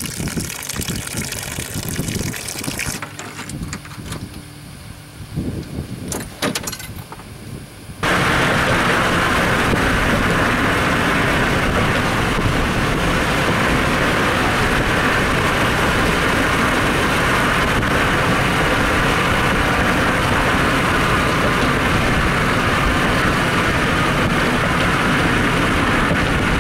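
Water trickling out of a jon boat's drain hole onto the grass, with a few light clicks. About eight seconds in, the sound switches abruptly to a loud, steady rush of road and wind noise from a car driving over a bridge.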